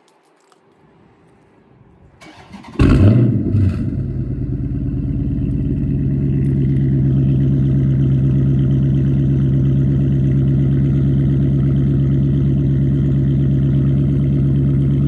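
Chrysler 300 SRT8's 6.4-litre 392 HEMI V8, remote-started on its stock exhaust with the catalytic converters still in place: the starter cranks briefly about two seconds in, the engine catches with a loud flare, then settles into a steady idle.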